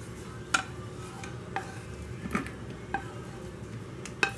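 Wooden spatula tapping and scraping against a pan as fried capsicum and onion pieces are pushed out into a plastic mixing bowl: about five separate sharp taps.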